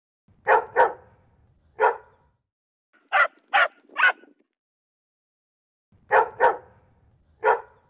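Dog barking: nine short, sharp barks in three groups of three, with pauses between the groups.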